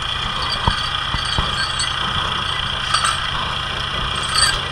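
An engine runs steadily while a steel chain clinks and knocks several times as it is handled, with a few dull knocks in the first second and a half and lighter clinks later on.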